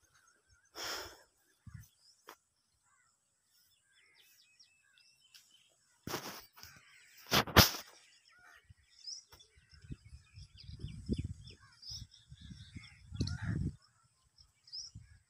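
Leaves and branches rustling as someone pushes through dense undergrowth, with two sudden loud swishes about six and seven and a half seconds in and a run of low rustling bumps near the end. Small birds chirp faintly.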